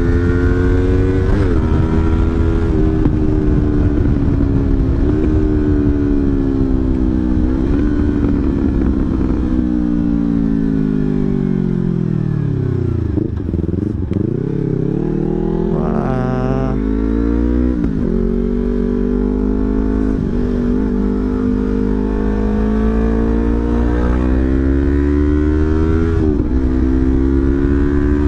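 Yamaha MT25's 250 cc parallel-twin engine running through an aftermarket Sakura muffler while being ridden. The revs climb and drop with each gear change, fall away to a low rumble as the bike slows about halfway through, then climb through the gears again.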